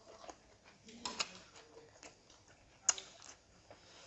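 Scattered soft clicks and smacks of people eating by hand: chewing mouth sounds and fingers picking food from plates, with a sharper click just before three seconds in.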